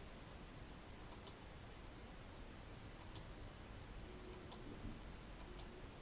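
Faint paired clicks, each pair two quick snaps, heard four times at uneven intervals over a quiet room background.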